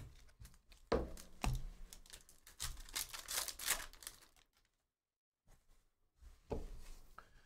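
Trading-card pack being handled and opened: two knocks on the table, then about a second and a half of crinkling and tearing of a foil Panini Prism basketball hobby pack wrapper, with a short rustle near the end.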